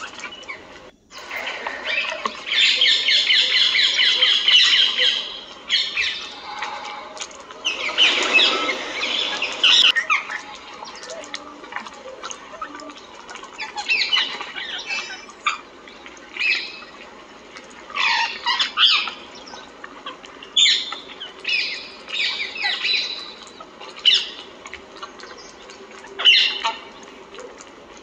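Mixed wild birds calling: squawks and chirps in short bursts, densest and loudest in the first ten seconds, then in scattered bursts.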